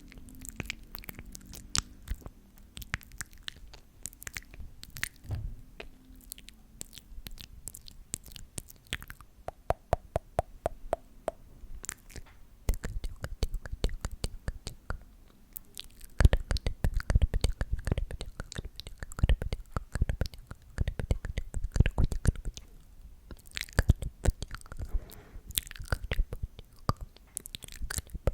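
Close-miked ASMR mouth sounds: wet, sticky clicks and smacks in quick, irregular runs, getting louder and denser about halfway through.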